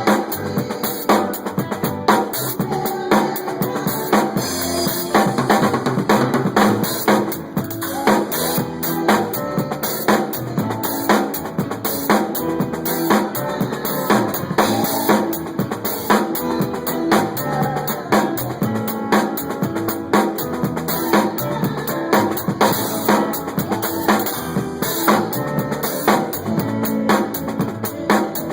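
Drum kit played continuously in a steady groove at a sound check, with strong regular accents about once a second.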